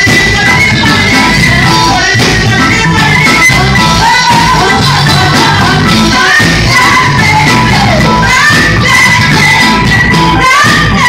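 Live band playing loudly, a woman singing lead into a microphone over drums and electric guitar.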